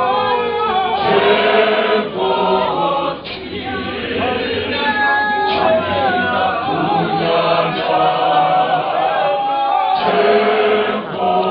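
A church congregation singing a Zulu hymn together in several voice parts, with a sharp percussive stroke about every two seconds.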